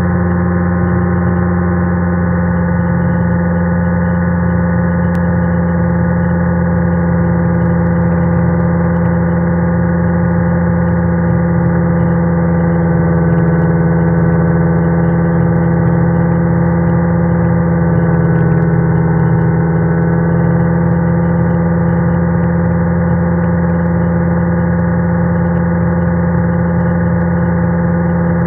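Rans S6 light aircraft's engine and propeller droning steadily at cruise power in flight, heard from inside the cockpit. The pitch and level hold nearly constant, swelling slightly about halfway through.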